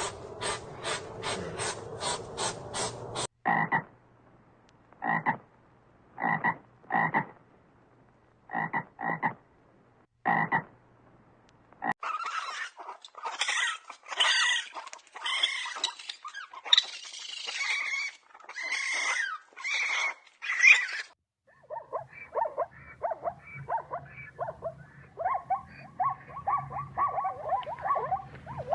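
A series of animal calls in several separate clips. First comes a fast, even run of pulses, then short single calls about a second apart, then a dense stretch of overlapping calls, and finally quick repeated calls.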